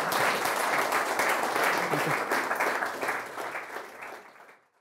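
Applause from a small seated audience, dense clapping that thins and fades away over the last second or so.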